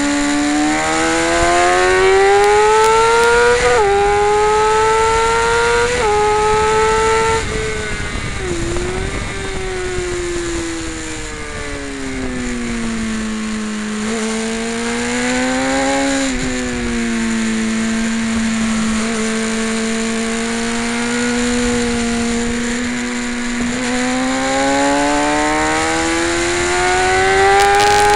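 Sport motorcycle engine heard from the bike itself at speed on a race track. It climbs in pitch with quick upshifts about four and six seconds in, then the throttle closes and the revs fall through downshifts for a corner. It pulls up again, holds a fairly steady note through a long stretch, and rises hard once more near the end.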